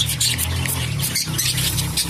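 Cockatiels getting a water spray bath: a dense crackle of spray droplets and flapping wet wings, over a low steady hum.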